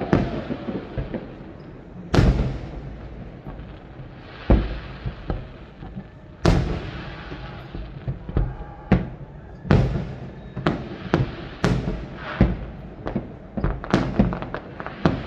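Aerial fireworks shells bursting in sharp bangs over a rumbling background. The bangs come a couple of seconds apart at first, then faster and closer together from about nine seconds in.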